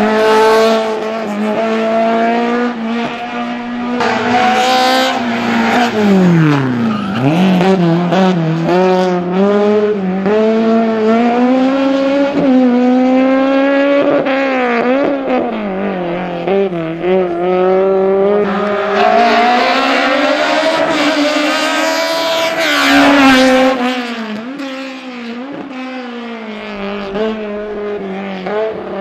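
Race-prepared Fiat 127's small four-cylinder engine driven hard, its revs climbing and dropping again and again as it accelerates, brakes and shifts through a cone slalom, with a deep drop in revs about seven seconds in. It is a little quieter near the end.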